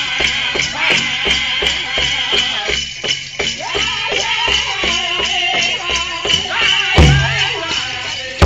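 Powwow drum group singing over a steady beat on a large shared drum, with bells on the dancers' regalia jingling throughout. Several heavy low thumps come near the end.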